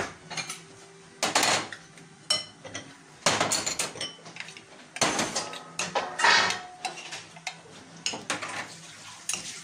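Metal spoon stirring a chunky tuna, green-olive and grated-carrot filling in a ceramic bowl: irregular scrapes and clinks of the spoon against the bowl, several seconds apart.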